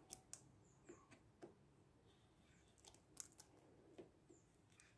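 Faint, scattered clicks and scrapes of a knife blade pressing and cutting through clear heat shrink tubing on a cutting mat.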